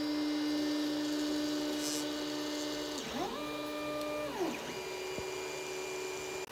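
FDM 3D printer printing a PLA plaque: its stepper motors whine in a few steady tones that slide down and back up in pitch about three seconds in and again about a second later, settling on a new pitch as the print head's moves change.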